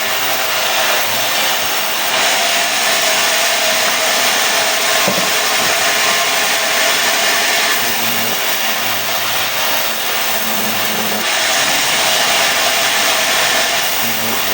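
Sawmill saw cutting mahogany into boards: a loud, steady, hissing noise, with a low hum coming and going underneath.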